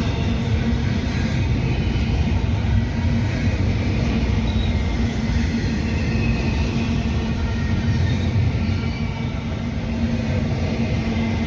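A train rolling past with a steady low rumble.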